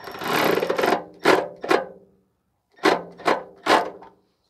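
Hand ratchet wrench swung back and forth to tighten a nut onto an exhaust heat shield stud, its pawl clicking in one long run and then in five short strokes.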